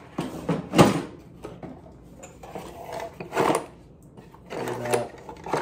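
Hand tools knocking and rattling against each other and a plastic Packout toolbox tray as they are rummaged through, in several separate clatters, the loudest about a second in.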